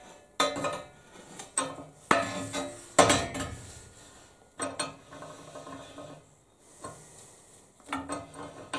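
Fire shovel being fitted into a welded steel sharpening vise: a string of irregular metal clanks and knocks as the shovel and its handle bang against the steel cradle, several with a brief metallic ring.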